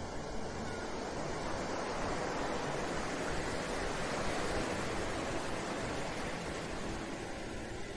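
Ocean surf: a wave washing in, swelling to its fullest about halfway through and then ebbing away.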